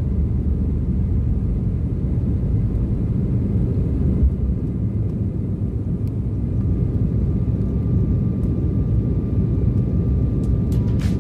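Cabin noise of an Embraer 175 jet on its takeoff run and liftoff: a steady low rumble of the twin turbofan engines at takeoff thrust and the wheels on the runway, heard from inside the cabin over the wing.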